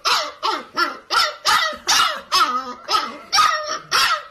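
Husky puppy barking in a rapid, unbroken string of short, high yapping barks, about three a second, each dropping in pitch.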